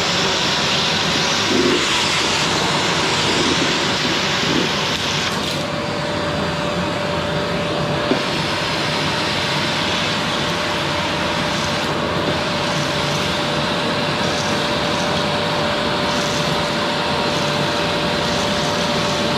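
Qilive vacuum cleaner running steadily while vacuuming a sofa. About five seconds in the pitch of the airflow changes: the high hiss drops and a steady hum tone comes in and holds.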